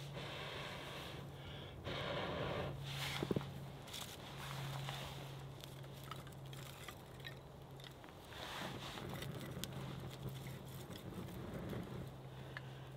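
A tinder bundle and split kindling catching fire: rustling and handling of the burning bundle and sticks, with a sharp knock about three seconds in. In the second half, light crackling ticks come as the kindling takes, among soft rushes of air noise and a steady low hum.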